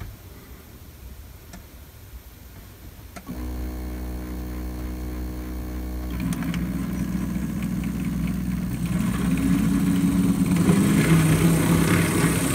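HO-scale model locomotive mechanism on DCC, its motor starting with a steady hum about three seconds in. It runs louder from about six seconds on, with gear and wheel noise growing as the throttle is stepped up and the loco comes closer.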